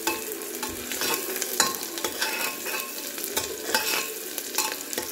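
Sliced onions sizzling in hot oil in an aluminium pressure cooker, with a spatula scraping and knocking against the pot at irregular moments as they are stirred.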